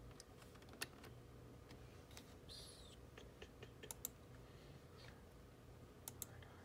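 Faint, scattered clicks of a computer mouse and keyboard, a few separate clicks with a pair near the end, over a quiet room with a low steady hum.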